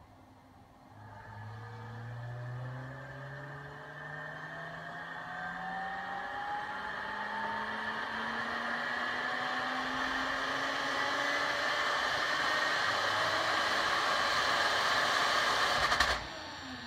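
Lotus Exige's tuned 3.5-litre V6 making a full-throttle pull on a chassis dynamometer: the engine note rises steadily in pitch and grows louder through the rev range for about fifteen seconds. Near the end the throttle snaps shut, the sound cuts off suddenly and the revs fall away.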